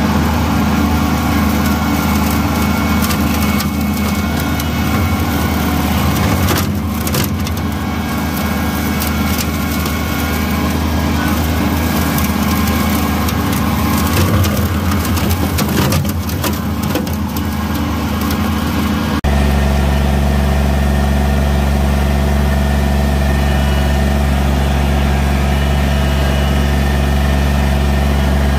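Kubota BX2380 compact tractor's diesel engine running steadily, with scattered knocks and rattles over it. About two-thirds of the way through, the sound cuts abruptly to a steadier, deeper engine drone.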